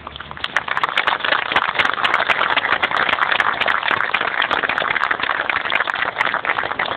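Crowd applauding, swelling over the first second and then holding steady.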